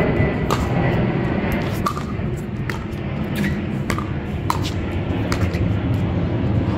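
Pickleball rally: a string of sharp pops about half a second to a second apart as the hollow plastic ball is struck by the paddles and bounces on the hard court, over a steady low background rumble.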